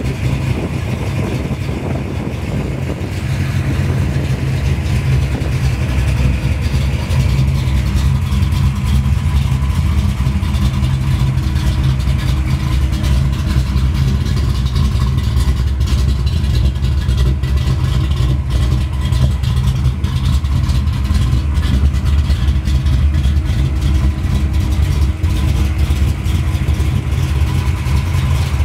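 Race-prepared 1995 Ford Mustang SVT Cobra R engine idling steadily, a little louder from about three seconds in.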